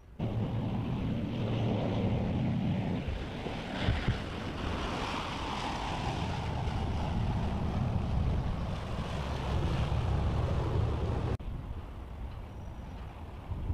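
Wind buffeting the microphone over choppy harbour water, with a fast motor boat passing: its engine and spray rise and fade in the middle. The sound drops abruptly about eleven seconds in.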